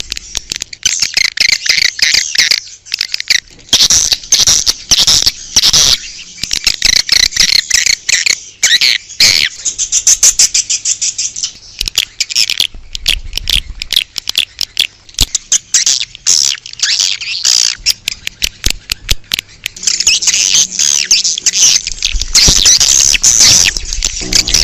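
Swiftlets twittering: a dense stream of rapid, high chirps and clicks that thins out briefly about halfway and grows denser near the end. This is an outdoor swiftlet-call recording of the kind played to lure swiftlets to a nesting house.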